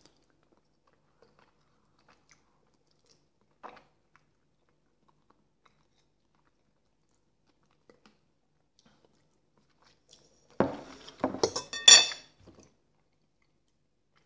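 Close-miked eating sounds: mostly near silence with a faint click about four seconds in, then about ten and a half seconds in a run of loud crunches and sharp clicks lasting about two seconds.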